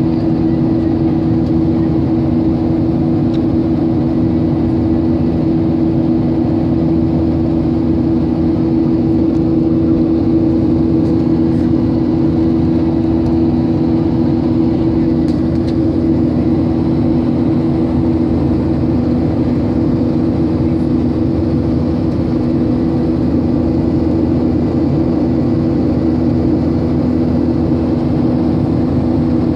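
Airliner cabin noise in flight: a steady engine drone and rush of air, with two low steady hum tones running through it.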